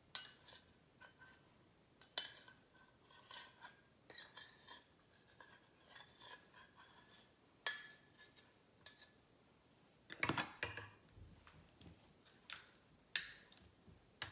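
Small stainless steel cups clinking against a glass mixing bowl and being set down on the table as sauces are poured in: a string of light clinks with a short ring, and a heavier knock and rattle around ten seconds in.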